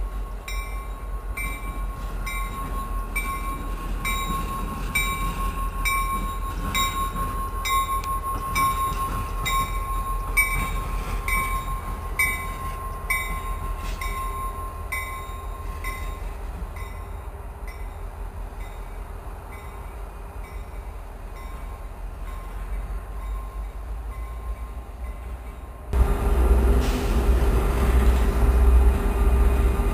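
Metra EMD F40PH-2 diesel locomotives running light past the station: a deep engine rumble with a steady high whine and a ringing repeated about every two-thirds of a second, both fading out after about 16 seconds. About 26 seconds in the sound jumps suddenly louder, to a close locomotive engine with a steady hum.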